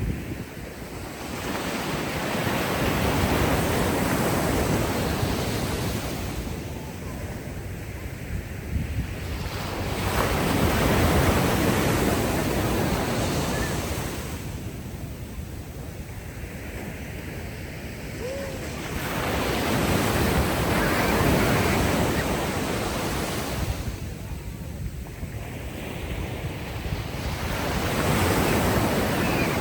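Ocean waves washing up onto a sandy beach, the surf rising and falling in four slow surges.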